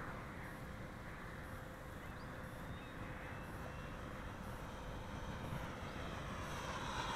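Engine of a radio-controlled Fw 190 scale model, faint and distant, a steady drone that grows a little louder near the end.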